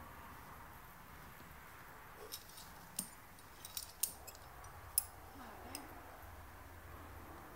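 Climbing hardware such as carabiners clinking: a scatter of about eight sharp, light metallic clicks over roughly three seconds, starting about two seconds in, over a faint steady background hiss.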